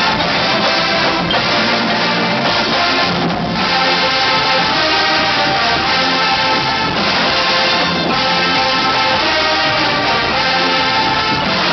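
Marching band brass section with drums playing a rock arrangement, loud and continuous.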